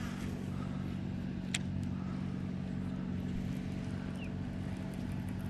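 A boat motor running steadily with a low, even hum. A single sharp click comes about a second and a half in.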